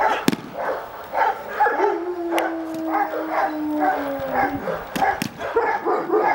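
A young female Czechoslovakian Wolfdog barking repeatedly, about two or three barks a second, in defensive aggression at a provoking stranger. One long drawn-out note runs through the middle, and a few sharp cracks sound among the barks.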